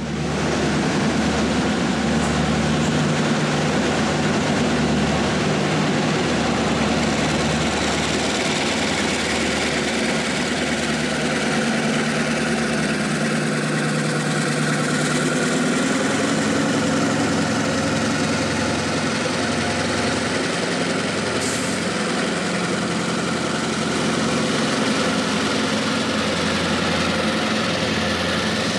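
Norfolk Southern diesel-electric locomotives' engines running with a steady, low drone.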